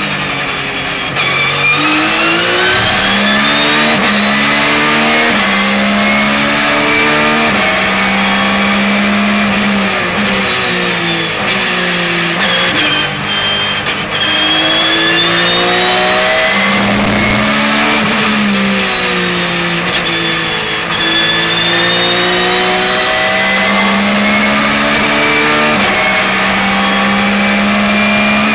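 Porsche 911 GT3 R racing car's flat-six engine, heard from inside the car, accelerating hard through the gears. Its pitch climbs and drops sharply at each upshift, with a falling stretch of braking and downshifts about halfway through.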